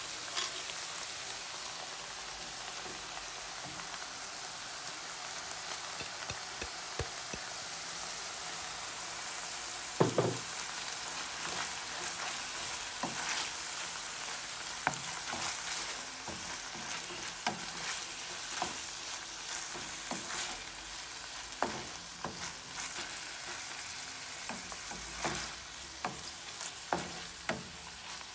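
Ground beef with onion and garlic sizzling steadily in a frying pan while a wooden spoon stirs it, scraping and knocking against the pan. The loudest knock comes about a third of the way in.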